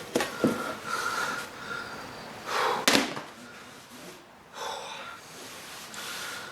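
Sharp knocks and scrapes of tyre tools on a motocross wheel rim, with heavy breaths, as a rear tyre is prised around the rim by hand.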